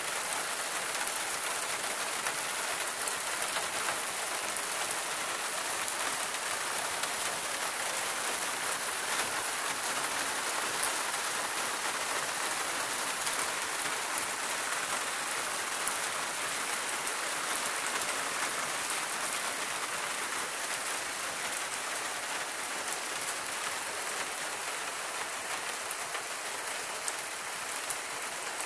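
Steady rain falling on a hard tiled surface, a constant even patter with a few sharper drop ticks.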